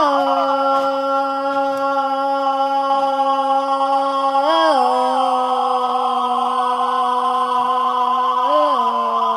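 A person's voice holding one long, steady sung note as a vocal sound effect, with a brief upward flick in pitch about halfway through and again near the end.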